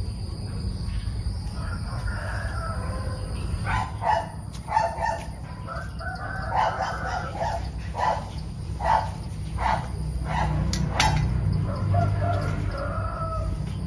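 Chickens calling: a rooster crowing and a run of short clucks about once a second, over a steady low rumble.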